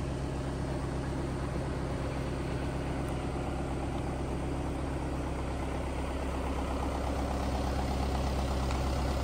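An engine idling steadily with a low, even hum, growing a little louder toward the end.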